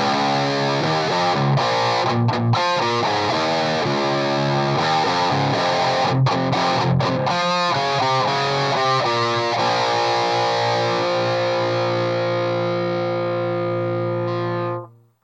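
Electric guitar played through a Saphue Crunch distortion pedal into an Orange Rocker 15 valve amp: a heavily distorted riff of short, chugging chords, then a final chord left ringing for about five seconds before it is cut off sharply near the end.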